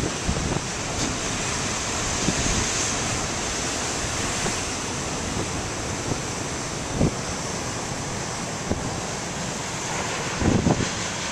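Large ocean waves crashing on a rocky shore, a steady wash of surf, with wind buffeting the microphone in a few short low bumps.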